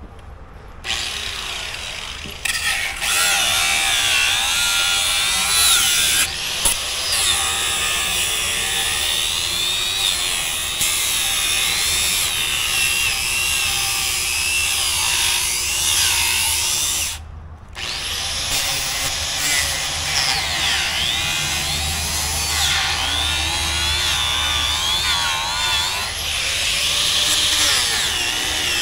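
Handheld power tool cutting down steel fence pipe. It starts about a second in and its pitch wavers up and down as the cut loads it. It stops briefly about two thirds of the way through, then starts again.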